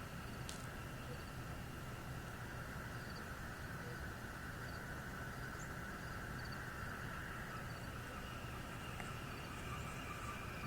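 Steady, unexplained drone in the night air: a low hum with two steady higher tones over it, the 'strange sound in the sky' whose source could not be pinpointed. Faint insect chirps tick over it every second or so.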